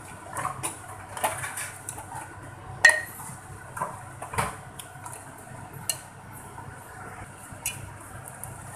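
Metal spoon stirring thick mutton curry in a metal pot, scraping and clinking against the pot at irregular intervals, with one sharper knock about three seconds in.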